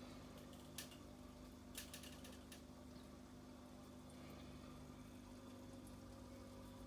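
Aquarium air pump humming faintly and steadily, with a few sharp clicks about a second in and a short cluster of them around two seconds in.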